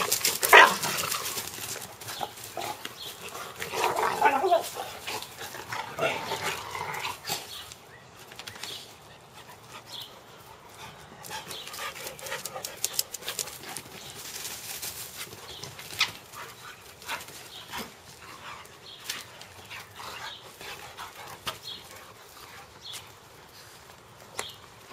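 Two dogs play-fighting, with dog vocalizations loudest in the first several seconds, then quieter scuffling with only occasional short sounds.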